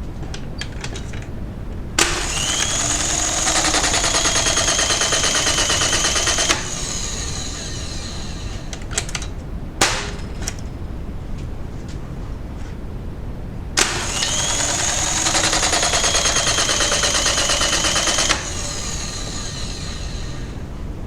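Terasaki AR216S air circuit breaker under test. Its motor runs with a fast ratcheting whir and a slightly gliding whine for about four and a half seconds, ending in a click. Then a few sharp mechanical clicks, the loudest a little under halfway through, and the motor runs again for another four and a half seconds.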